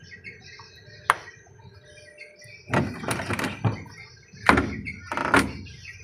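Lid-lock switch of a Sanyo AQUA top-loading washing machine being worked by hand: one sharp plastic click about a second in, then three louder knocking clatters as its lever is pushed down to test whether it springs back and makes contact. Birds chirp faintly throughout.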